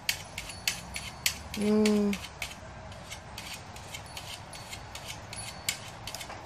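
Goats chewing dry hay: irregular crisp crunching clicks, about two a second. About one and a half seconds in comes one short, steady, low hum, the loudest sound here.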